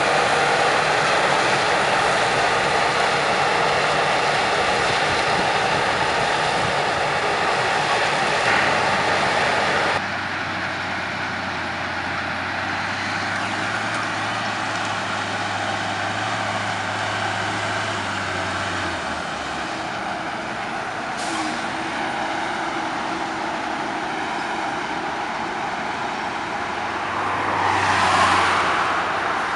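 Claas Lexion combine harvester running close by as it harvests, a loud, dense, steady machine noise. About ten seconds in it drops to a quieter, more distant mix of farm engines, tractors and the combine, with a low engine hum for several seconds. Near the end a car drives past, rising and fading.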